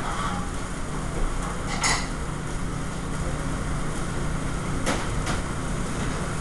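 Restaurant kitchen line: a steady low drone of the exhaust hood under sharp clatters of pans and utensils, one about two seconds in and two close together near the end.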